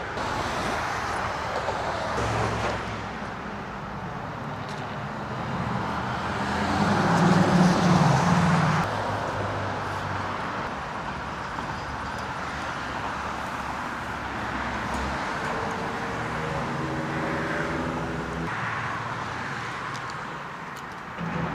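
Road traffic: cars driving past, one passing loudest about seven to eight seconds in and another engine drone about fifteen to eighteen seconds in, over a steady hum of traffic.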